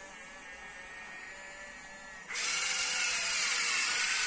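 Small electric gear motors of a 1/14-scale Jamara RC Liebherr excavator whining as its upper body slews round on the Huina rotation motor. About two seconds in, a much louder, higher motor whine starts and holds steady.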